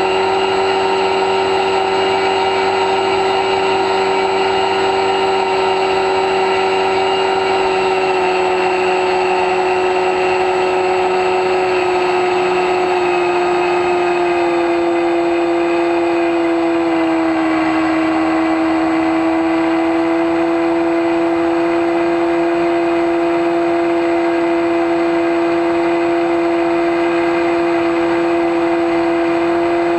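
Electric motor and pusher propeller of an X-UAV Talon FPV plane in flight, a steady, loud whine. Its pitch steps down slightly about halfway through, then holds.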